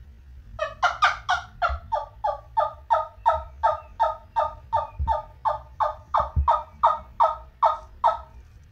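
Wing Wood wooden turkey yelper call played in a long run of hen-turkey yelps, about three a second. The run starts about half a second in and stops shortly before the end.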